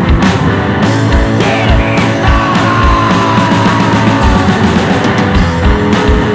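Electric guitar and drum kit playing rock together: held guitar notes over a steady drum beat, with a high note sliding slowly down in pitch from about two to four seconds in.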